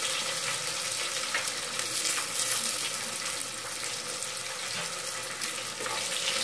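Green chillies and onions sizzling in hot oil in an aluminium pressure cooker, a steady hiss. Near the end a spoon starts stirring them.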